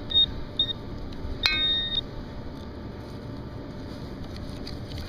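Metal detector beeping over a buried target: two short high-pitched beeps, then a click and a slightly longer beep about a second and a half in, over a steady background hiss.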